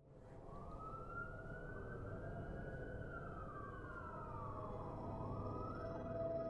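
A faint siren wailing slowly: it rises, holds, falls and rises again over a low steady rumble, fading in from silence at the start. Steady music tones come in near the end.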